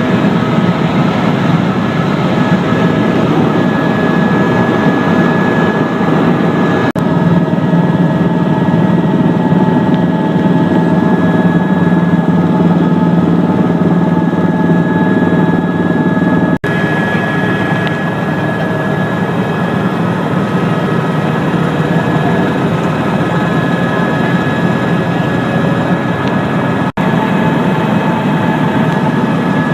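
Helicopter in flight: a loud, steady drone of engine and rotor with a constant whine running through it, broken by a split-second gap three times.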